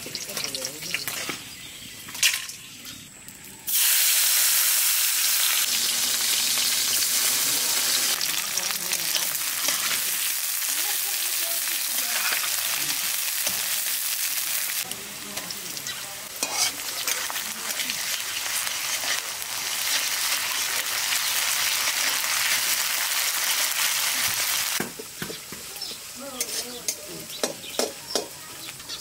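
Sliced onions frying in hot oil in a steel karahi: a loud sizzle starts suddenly about four seconds in and runs on, with a steel spatula scraping and tapping the pan. Near the end the sizzle drops back, leaving mostly the spatula's scrapes and clicks.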